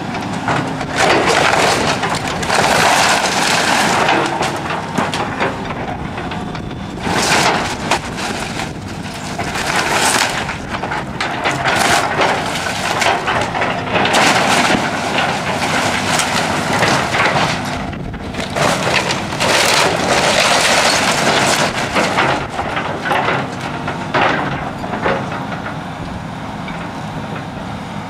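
Heavy construction equipment tearing down a house: the structure crunches and breaks apart in repeated loud bursts over the machine's steady engine.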